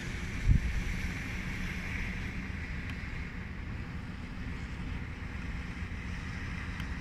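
Storm wind buffeting the microphone: a steady low rumble with a hiss above it, and one loud low bump about half a second in.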